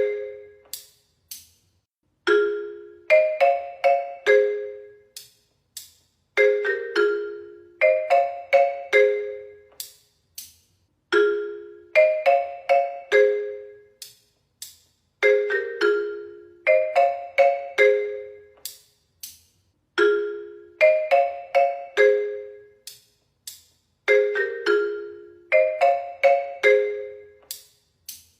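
A phone ringtone melody of quick, ringing mallet-percussion notes, played as a short phrase that repeats about every four and a half seconds with a brief pause between repeats.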